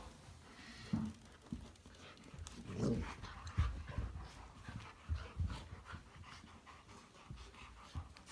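White golden retriever puppy breathing and moving about, with scattered soft knocks and clicks, and a louder sound about three seconds in.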